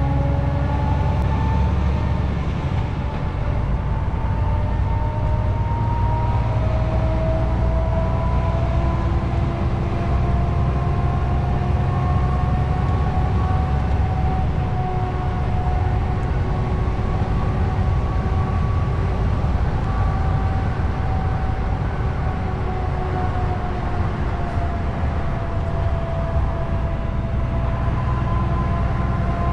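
DAF truck driving at road speed, heard from inside the cab: a steady diesel engine drone with tyre and road noise, and a thin tone that slowly drifts up and down in pitch.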